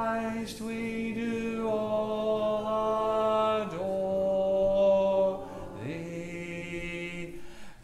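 Slow hymn sung a cappella with a man's voice leading. Each syllable is held long, and the voice slides up into a new note about six seconds in.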